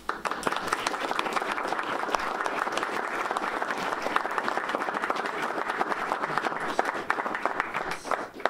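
Audience applauding: many hands clapping in a dense patter that starts suddenly and dies away near the end.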